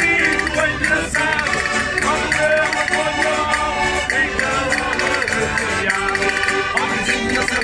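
Portuguese folk group singing a lively song together with instrumental accompaniment, including the rasp of a wooden scraper (reco-reco) stroked with a stick.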